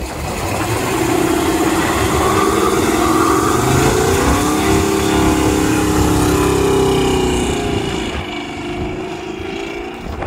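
Pickup truck doing a burnout: the engine revs hard while the rear tyres spin and squeal. The sound builds over the first second and fades over the last couple of seconds as the truck pulls away.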